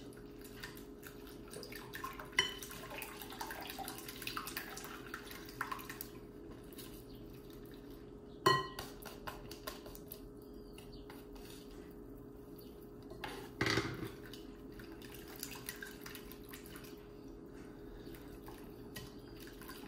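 Balloon whisk beating an egg, cream and milk mixture in a glass bowl, with light taps and clinks against the glass. There is a sharp knock about eight seconds in and another around fourteen seconds, over a faint steady hum.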